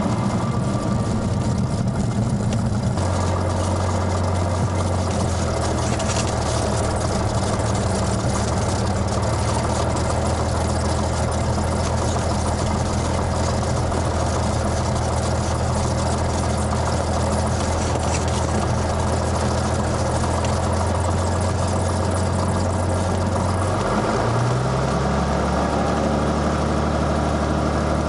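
Cessna 182S single-engine airplane's six-cylinder piston engine and propeller droning steadily. About 24 seconds in the drone's pitch steps up with a short rise and holds at the higher pitch.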